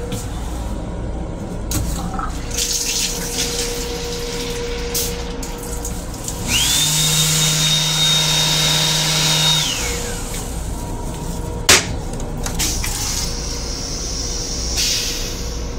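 M7 railcar restroom sink faucet running for about three seconds: a pump hums with a high, steady whine as water pours into the basin, and the whine falls away when it shuts off. This plays over the steady rumble of the rail car, and a single sharp knock follows a couple of seconds later.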